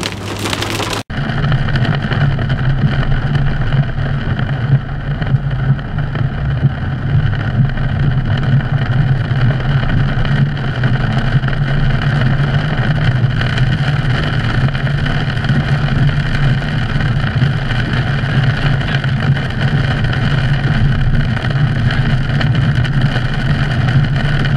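Steady low drone of a car driving on a wet road, its engine and tyre noise heard from inside, picked up by a GoPro; the sound changes abruptly about a second in where the recording switches.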